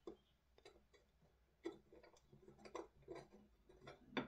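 Faint, irregular small clicks and taps as an airsoft rifle's dust cover and its hinge pin are handled and fitted against an upper receiver, with a sharper click near the end.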